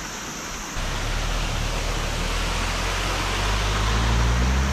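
Water running over a small sandbag weir into a shallow creek, a steady rush. A low hum comes in about a second in and rises slowly in pitch toward the end.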